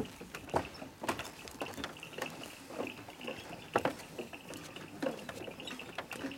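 Footsteps of several people on the wooden plank deck of a hanging footbridge: irregular knocks, a couple each second.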